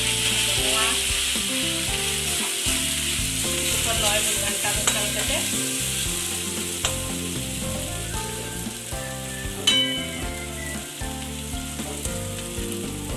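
Onions and ground spices sizzling in hot oil in a steel kadai while being stirred with a spatula, with a few sharp knocks of the spatula against the pan.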